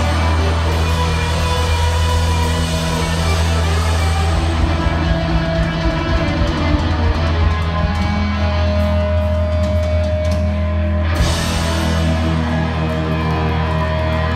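Live rock band playing loud, with electric guitars, bass and drums, a low bass note held steady underneath. The bright top end thins out about four seconds in and comes back sharply around eleven seconds.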